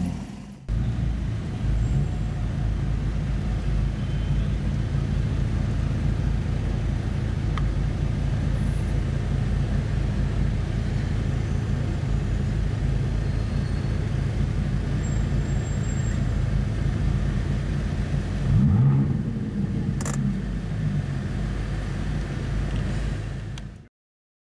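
Audi R8's 4.2-litre V8 idling with a steady low rumble in slow traffic, with one short rise and fall in engine note about 19 seconds in.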